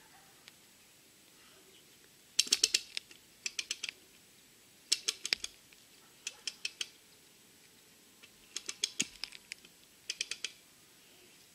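Hand-operated stump-pulling rig clicking in short bursts of rapid, evenly spaced clicks, like a ratchet and pawl, as the chain on a tree stump is tensioned stroke by stroke.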